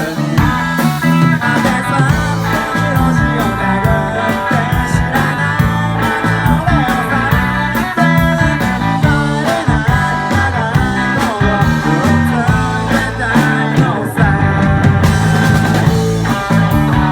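Rock music with guitar and a steady beat, playing without a break.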